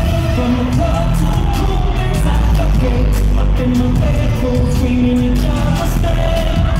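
Music with singing: a pop-style song with held vocal notes over a steady beat.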